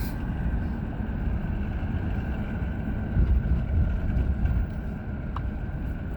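Steady low rumble of a car driving, engine and road noise.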